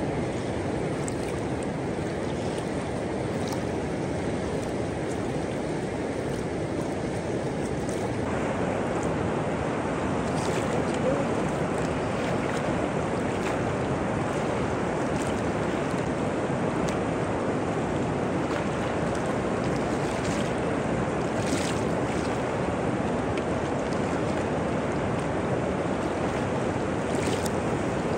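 River rapids rushing over rocks, a steady rushing of water that gets a little louder and brighter about eight seconds in.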